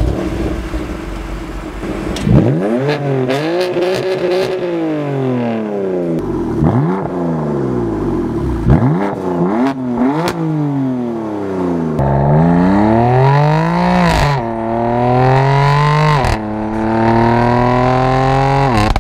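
BMW M3 F80's twin-turbo 3.0-litre straight-six through an Akrapovic exhaust, idling and then blipped over and over, the revs rising and falling, with a few sharp pops as they drop. Near the end it pulls hard, the pitch climbing and dropping back twice as it shifts up.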